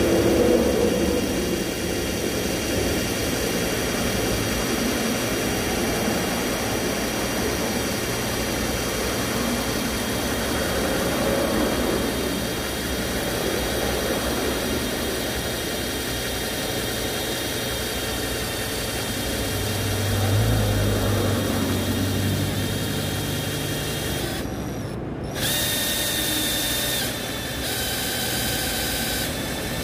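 Cordless drill motor running steadily with a whine. Near the end it stops for a moment and starts again with a higher, brighter whine.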